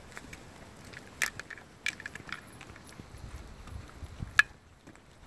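Scattered light clicks and jingles from walking a dog on a lead, with the sharpest click about four seconds in.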